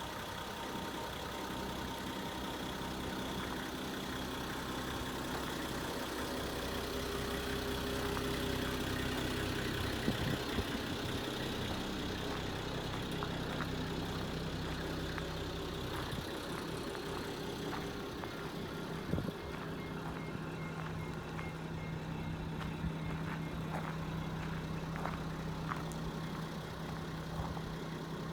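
Nissan Civilian bus's TD42 4.2-litre straight-six diesel engine idling steadily, with a few faint clicks over it.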